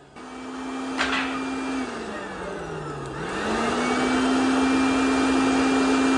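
Motor-driven sawdust-processing machine starting up with a steady hum. About a second in there is a single knock; from about two seconds the hum drops in pitch as the machine slows under load, then climbs back to a steady run.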